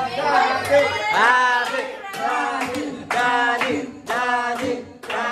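People's voices in a string of short, rising calls about once a second.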